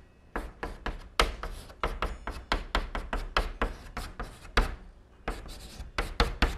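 Chalk on a blackboard: a quick, irregular run of sharp taps and short scraping strokes as characters are written.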